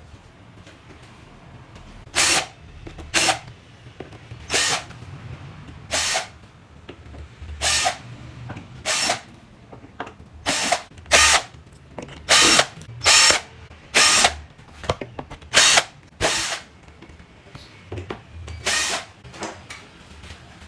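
Small power drill run in about fifteen short bursts, each under a second, stopping and starting unevenly.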